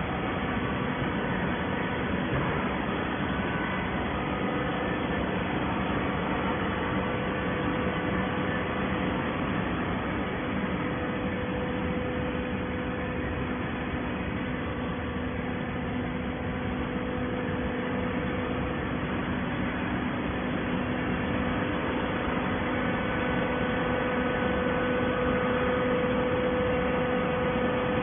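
Waste-paper baling press running, a steady mechanical hum with a constant tone that grows slightly louder near the end.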